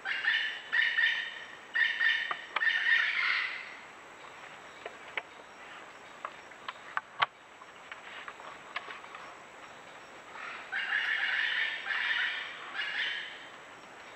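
A bird calling in two groups of short, pitched calls: about four at the start and about three more near the end, with a few faint clicks in between.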